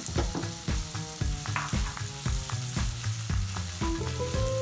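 Chopped onion and minced garlic sizzling in hot oil in a nonstick wok while a silicone spatula stirs them.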